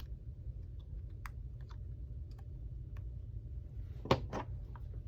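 Scattered faint clicks and taps, then a few louder clicks about four seconds in, from small parts being handled while the screen's flex-cable connector is plugged back into an opened iPhone X. A low steady hum runs underneath.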